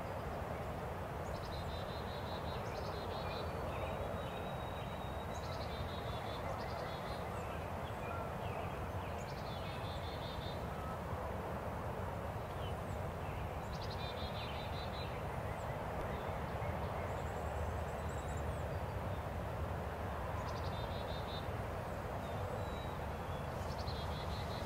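Small birds singing short trilled phrases every few seconds over a steady outdoor background hiss.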